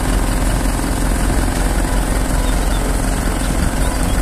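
Engine of a truck-mounted aerial lift running steadily while its hydraulic boom raises the work basket, with a steady hum over the engine noise.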